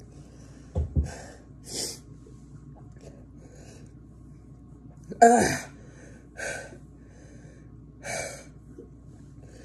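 A person gasping and taking sharp, noisy breaths in short bursts from the burn of very hot sauce, with one loud, half-voiced gasp about five seconds in. Two dull low thumps about a second in.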